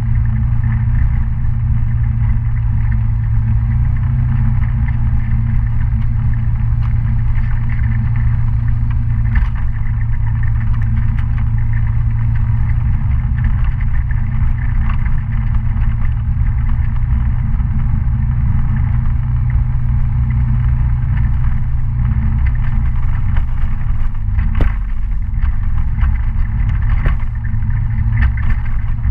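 Kymco Citycom 300i scooter's single-cylinder engine running at a steady speed on a dirt road, with scattered knocks and clatter from the rough surface and one sharper knock near the end.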